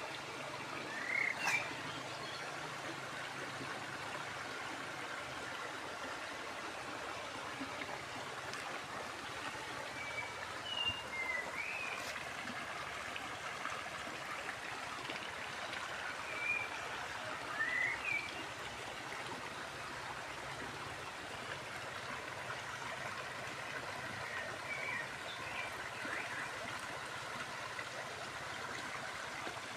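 A stream runs with a steady rush of water. Short high chirps from birds come every few seconds over it.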